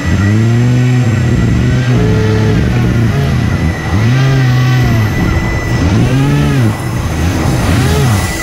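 Electric motors and fans of an RC hovercraft running hard, their pitch rising and falling in repeated swells as the throttle is worked, the swells coming quicker later on. A steady high whine runs underneath.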